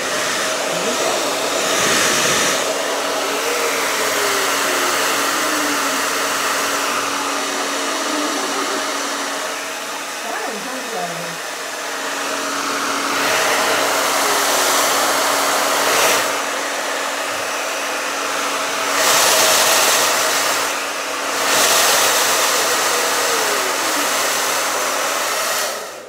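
Handheld hair dryer blowing, a steady rush of air with a low hum, swelling louder a few times as it swings closer, then switched off at the end.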